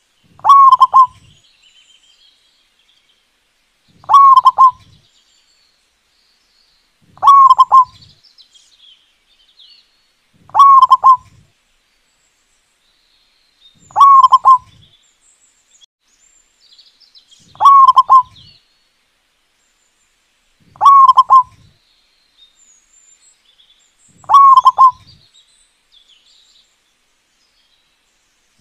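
Zebra dove (perkutut) cooing: eight short, rapid coo phrases, one about every three and a half seconds. Faint higher chirps are heard between the phrases.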